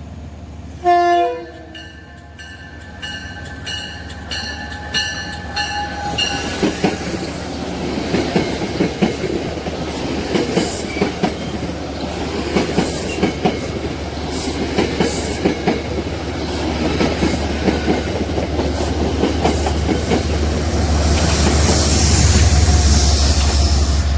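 Freight train passing: a short, loud horn blast about a second in and a repeating ringing until about six seconds. After that the railcars roll by with rhythmic wheel clicks over a low rumble that grows louder near the end.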